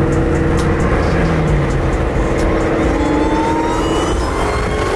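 Cammed Shelby GT500's supercharged V8 running hard under load, heard from inside the cabin, with a rising whine as it pulls about three seconds in.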